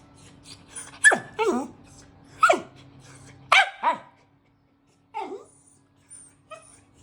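Dog barking and yelping about six times, each call sliding steeply down in pitch, as it looks for its toy chicken.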